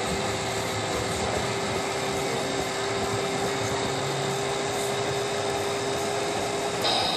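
Operating model car wash accessory running: a steady small-motor hum with a held tone as its drive pulls the toy car into the wash bay. Near the end the tone stops and a higher pair of tones starts.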